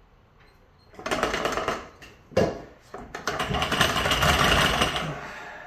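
Metal rattling and scraping as a Mercury L6 outboard's crankshaft, connecting rods and pistons are pushed and worked down into the cylinder block, the pistons sliding through ring compressors into the bores. It comes as a short burst about a second in, a sharp click, and then a longer, louder stretch of rattling from about three seconds in.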